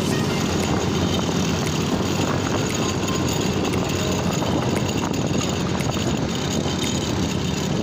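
A motorcycle running at a steady speed on the road, its engine drone mixed with a constant rush of wind over the microphone.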